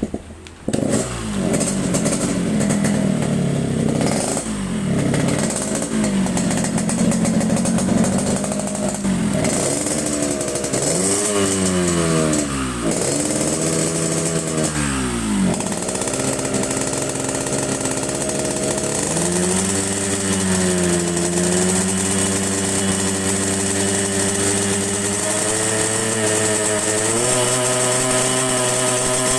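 Yamaha RX-King two-stroke single-cylinder engine starting up within the first second, then running with a few quick throttle blips that rise and fall in pitch about ten to sixteen seconds in, before settling into a steady fast idle. The carburettor is jetted rich (the 'setelan basah', wet tune) with the foam air filter cut open, for the deep 'ngorok' snoring exhaust note.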